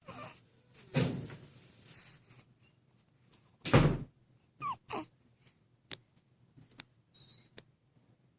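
A pet sneezing: a sharp burst about a second in, a louder one just before four seconds, then several short, fainter bursts and clicks.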